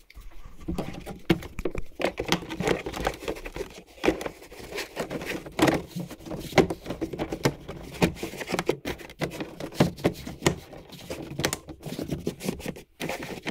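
Plastic interior trim of a 2015+ Honda Fit being handled and snapped back into place: a string of irregular clicks, taps and rustling.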